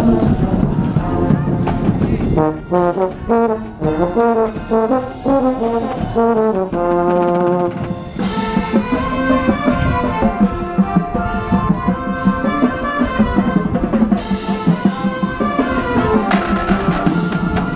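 High school marching band playing its show, brass melodies over the drums, heard from among the brass. The music moves in stepwise melodic lines, and a fuller, brighter passage begins about eight seconds in.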